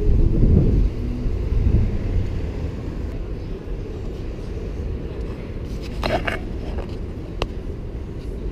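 City street traffic: a steady low rumble of passing motor vehicles, with a brief clatter about six seconds in and a sharp click shortly after.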